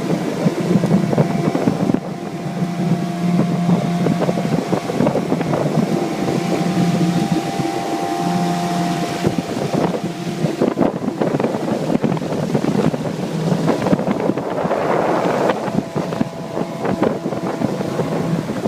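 15-horsepower Mariner outboard motor running steadily under way, with wind buffeting the microphone. About fifteen seconds in, a louder rushing noise rises briefly over the engine.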